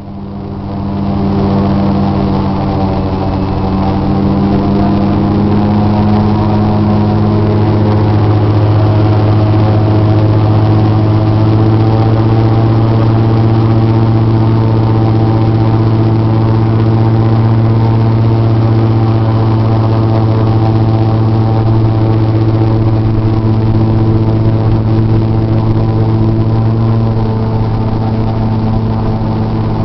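Airboat's engine and large air propeller running at cruising speed: a loud, steady drone with a strong low hum. It builds up over the first second or two, then holds.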